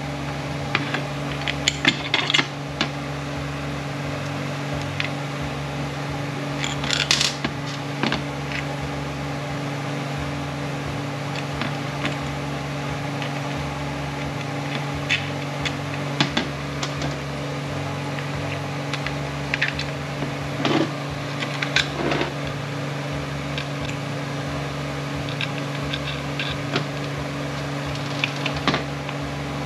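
Scattered clicks and metallic taps of small hand tools and steel parts being handled on an aluminium 6T70 transmission valve body and a steel workbench, with a louder cluster about seven seconds in and two more around twenty-one seconds. A steady low machine hum runs underneath.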